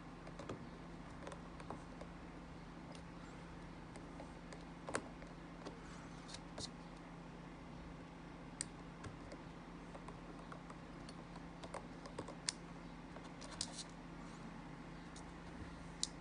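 Faint, scattered small clicks and taps of fingertips and nails on a MacBook Pro's aluminium case and a small screw, over a low steady hum.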